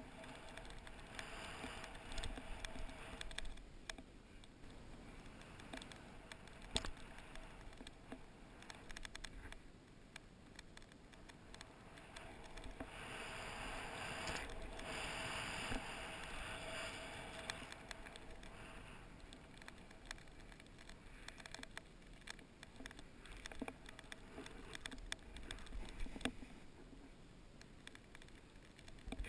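Snowboard sliding and carving through powder snow: a faint, uneven hiss that swells and fades, with occasional small knocks.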